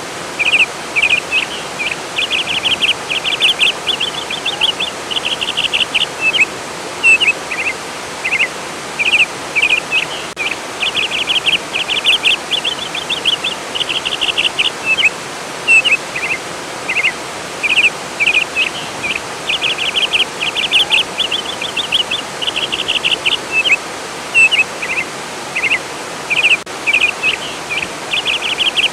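A songbird singing phrases of quick trilled notes, one after another with short gaps, over the steady rush of flowing water.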